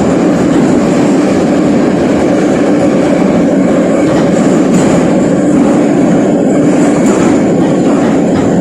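Moscow Metro train running at speed through a tunnel, heard from inside the carriage: a loud, steady rumble of wheels and running gear.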